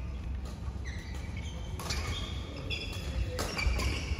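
Court shoes squeaking on a badminton court floor, with a few sharp knocks of play over a steady low rumble.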